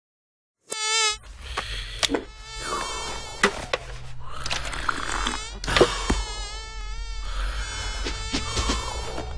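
Cartoon housefly buzzing sound effect, starting just under a second in, its pitch wavering up and down as the fly darts about, with several sharp knocks mixed in over a low hum.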